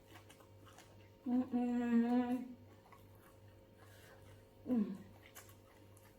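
A woman hums a closed-mouth "mmm" of enjoyment while eating, held steady for about a second with a slight waver. Near the end comes a second, short "mm" that falls in pitch.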